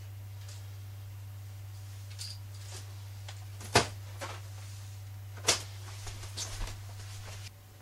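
A steady low electrical hum under a scatter of sharp knocks and clicks from handling and movement, the two loudest about a second and a half apart in the middle. The hum cuts off near the end.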